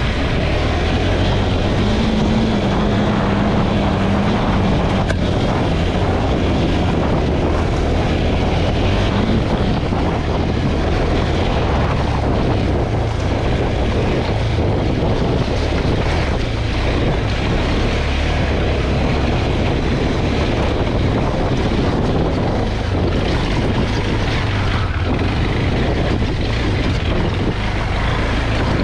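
KTM 390 Adventure's single-cylinder engine running steadily at low trail speed, with tyres crunching over loose rock. Wind buffets the microphone.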